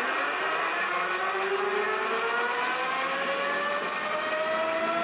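Zero electric motorcycle's permanent-magnet motor and drivetrain whining on a chassis dynamometer, over a steady hiss. The pitch rises slowly and steadily as the bike is eased up through its speed range with a load on the rear tyre.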